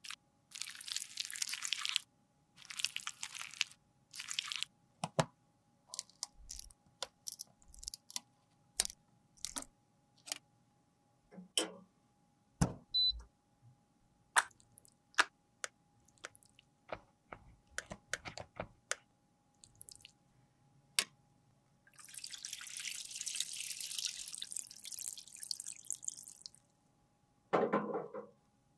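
A metal spatula scrapes soft cream makeup out of a metal compact's pans in short repeated strokes. Scattered light wet taps and clicks follow, then a steady hiss for about four seconds near the end.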